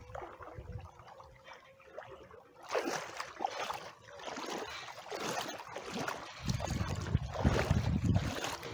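Water sloshing and trickling around someone wading through shallow water, quiet at first, then irregular splashy surges from about three seconds in that grow louder toward the end.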